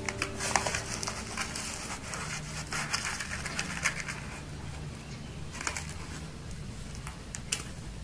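Dry potting mix poured from a plastic scoop into a small plastic plant pot, the grains rustling and pattering, with sharp clicks of the scoop against the pot. The pouring is dense for about the first four seconds, then thins to a few separate clicks.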